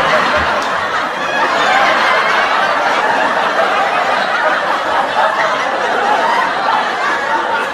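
Laugh track: a crowd of people laughing together, dense and steady.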